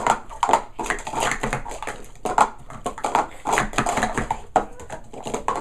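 Plastic sport stacking cups being rapidly stacked up and down through a speed-stacking cycle: a fast, continuous run of light clacks and taps.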